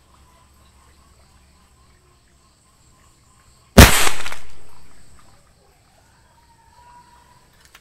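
A single sharp bang about four seconds in, as a .22 air rifle fires an exploding double-action pellet into an old mobile phone, fading away over about a second and a half.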